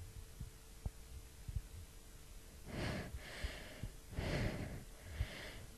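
A person's quick, gasping breaths in the build-up to a sneeze: four separate breaths over the last three seconds, after a quiet start with faint clicks.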